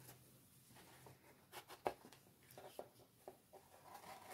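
Near silence with a few faint, short taps and rustles of a cotton rope and a small box being handled, the clearest tick about two seconds in.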